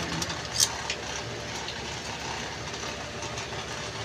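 Steady low hum, with a few sharp crisp crackles in the first second or two as dried flying fish (tuyo) is broken apart by hand to take off the wings.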